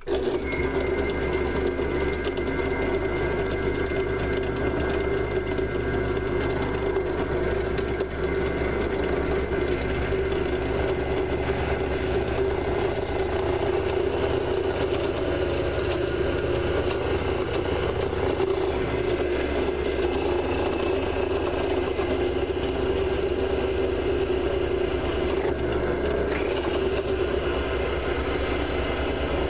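Harbor Freight mini lathe's motor running steadily while a drill bit is fed into a spinning purpleheart blank, starting abruptly and holding one even pitch throughout. The bit is rubbing rather than cutting and burning the wood, as the turner judges afterwards.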